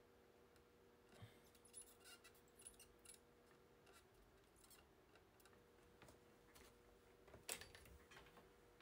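Near silence: a faint steady hum with scattered faint clicks and ticks, the clearest about seven and a half seconds in.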